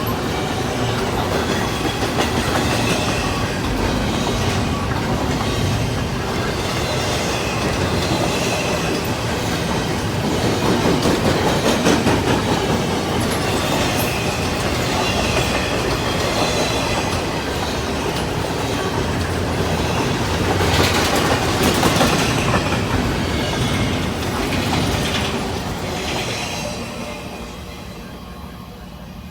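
Train cars rolling past, wheels clicking over the rail joints with some squeal from the wheels. The sound swells twice, then fades away near the end as the train recedes.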